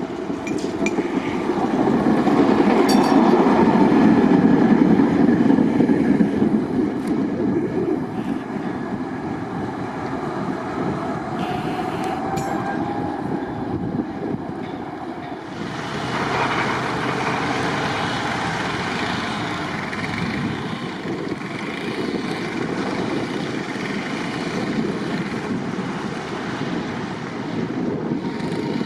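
Measuring tram car 5521 running along the track: a continuous rumble of wheels on rails, loudest in the first few seconds and stepping up again about halfway through.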